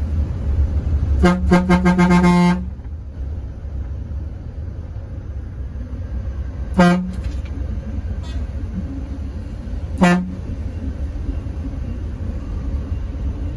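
A bus runs with a steady low rumble while its horn toots: a rapid string of short toots about a second in, then two single short toots, one about seven seconds in and one about ten seconds in.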